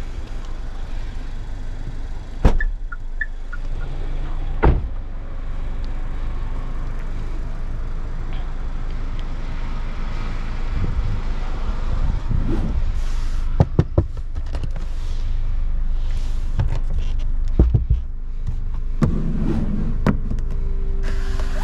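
Scattered clicks and knocks from a Chery Tiggo 7 Pro's cargo area being handled, its retractable luggage cover included, over a steady low rumble. Near the end a steady hum sets in.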